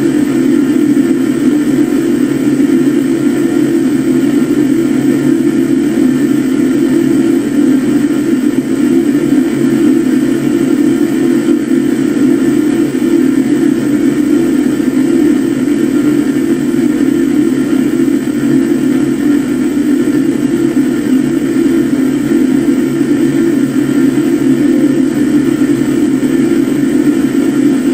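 Static noise run through a '500x' effect, heard as one loud, unbroken low drone with a steady hiss above it.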